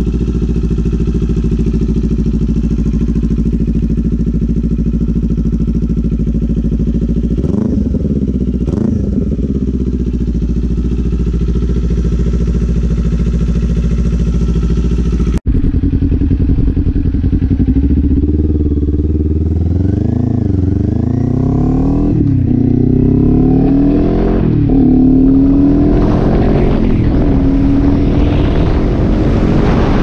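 2019 Kawasaki Z400's parallel-twin engine through a Leo Vince LV10 slip-on exhaust, idling steadily, then revved twice briefly about eight seconds in. After a cut about halfway, the bike is ridden and accelerates up through the gears, the engine note rising and dropping back at each shift.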